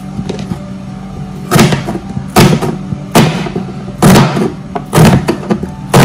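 Chef's knife slicing an onion on a cutting board: six sharp knocks of the blade meeting the board, roughly one a second, starting about a second and a half in.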